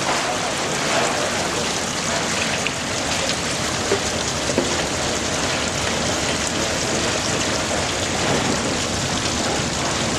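Shaking table (gravity concentrator) running: a steady splashing rush of wash water flowing over the riffled deck, with a couple of small knocks near the middle.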